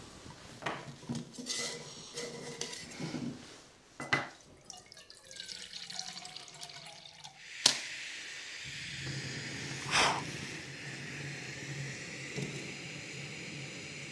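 Handling knocks, then water poured into a pot, its pitch rising as it fills. About halfway through a sharp click, and a small camping gas stove burns with a steady hiss to heat water for tea, with one louder click a couple of seconds later.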